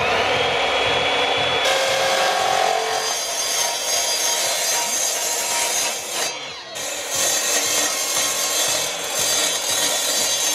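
Sliding mitre saw cutting a thin 0.5 mm stainless steel sheet: the motor whine rises and settles at the start, then a steady, high-pitched hissing cut runs on, dipping briefly about six seconds in.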